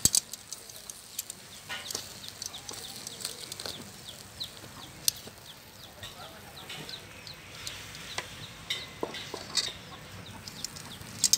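Chickens chirping over and over in short, high, falling notes, with a few sharp clicks of metal tongs handling fish on the grill.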